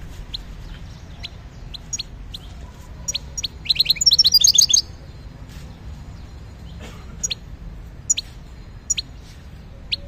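European goldfinch calling: short, sharp chirps now and then, with a fast run of twittering notes from about three and a half to five seconds in.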